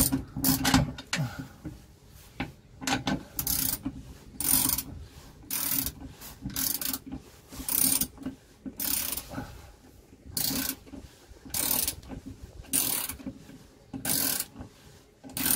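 Socket ratchet clicking in short bursts, about one a second, as its handle is swung back and forth to tighten a bolt on the waste water tank's mounting bracket.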